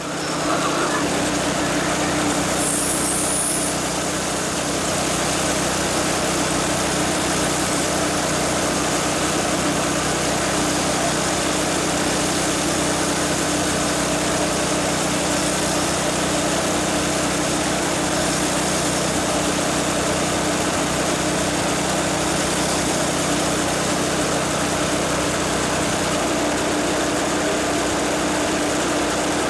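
McLane reel mower's engine running steadily, driving the reel backward against the bed knife through the backlapping kit while the reel is lapped with 120-grit compound.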